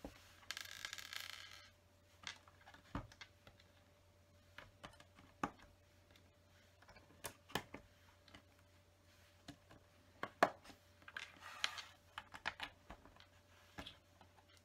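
LEGO bricks clicking and tapping as plastic pieces are picked up off the table, set down and pressed onto the build: irregular single clicks, with a short rustling spell near the start and another about two-thirds through.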